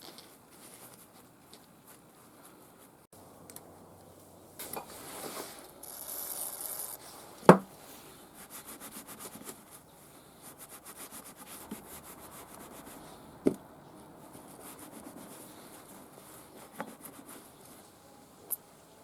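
Hand work on small engine parts: irregular rubbing and scraping strokes, with a sharp knock about seven and a half seconds in and a smaller one near the middle.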